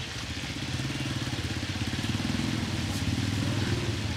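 A motorcycle engine running steadily close by: a fast, even low throb that keeps going without a break.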